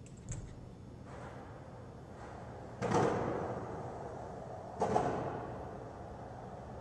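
Skateboard wheels rolling on a hard floor, the rolling noise swelling sharply and then fading away, loudest just under three seconds in and again near five seconds. A small click comes right at the start.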